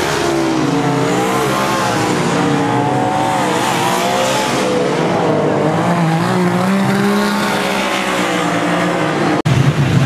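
Several speedway stockcar engines racing together, their pitch rising and falling as the cars rev through a corner, over a steady noise of tyres and exhaust. About nine seconds in the sound breaks off abruptly and picks up with a different, rougher engine sound.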